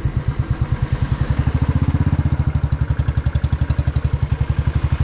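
A vehicle engine idling steadily, a low, even pulse at roughly thirteen beats a second.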